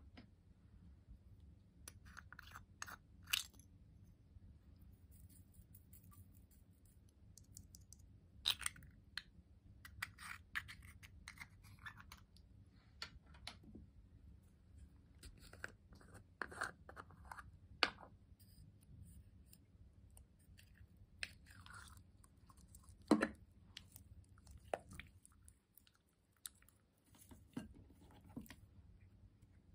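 Clear slime loaded with sprinkles, glitter, beads and gold leaf in a glass bowl being handled, giving irregular crunchy crackles and clicks with a few sharper clicks standing out.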